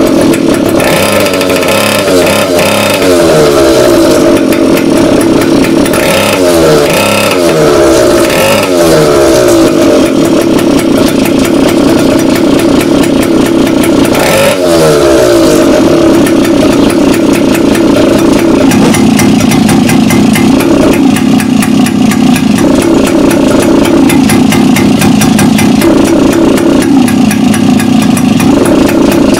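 Two-stroke brush-cutter engine of a homemade go-kart running through a welded straight-through exhaust. It is revved up and dropped back several times in the first half, then runs more steadily.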